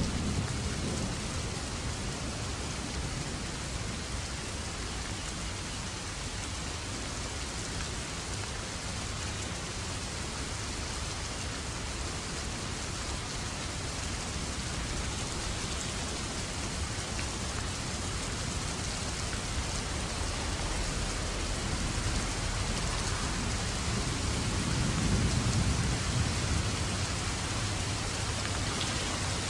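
Steady, even rain-like noise with a low rumble that swells briefly about 25 seconds in.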